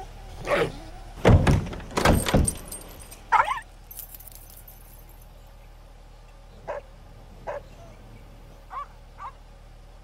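A dog yelping and whining in short pitched calls, with a burst of several heavy thuds between about one and two and a half seconds in. Later come a few short, faint whimpers.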